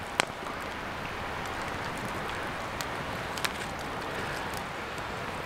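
Two sharp clinks of a spoon against a metal camp plate, one just after the start and one past the middle, with a few fainter ticks, over a steady outdoor background hiss.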